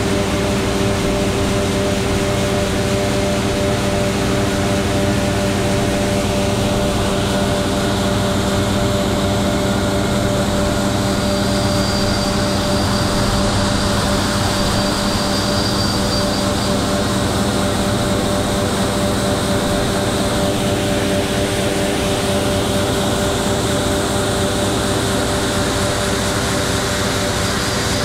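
John Deere combine running at working speed while its unloading auger pours kidney beans into a grain trailer: a loud, steady machine drone with a constant hum and a wide hiss over it.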